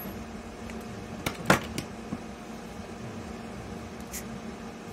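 Steady background hum with a few sharp clicks and taps, a cluster of them about a second and a half in and one more near the end: hand-held screwdriver and bit-holder parts clicking together as they are handled.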